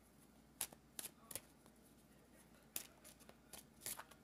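A few faint, sharp clicks and snaps, spread irregularly, of tarot cards being handled and laid down.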